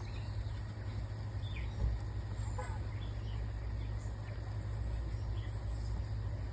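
Steady low rumble with a few faint, short bird chirps.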